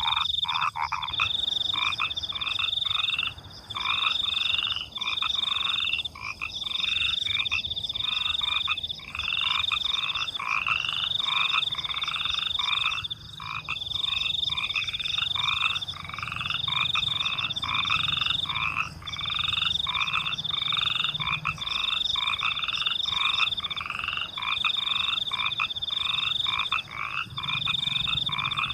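A chorus of frogs croaking over and over, about once a second, against a steady high-pitched trill of crickets that breaks off briefly every second or two.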